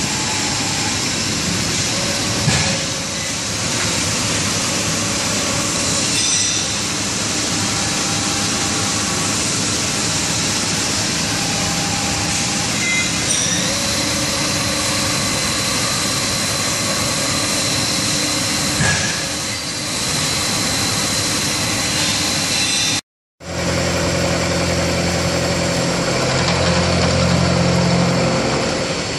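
CNC vertical milling machine cutting metal: a steady, loud mix of cutting noise and spindle tones. The sound drops out for a moment about 23 seconds in, and after that a heavier low hum runs under the cutting.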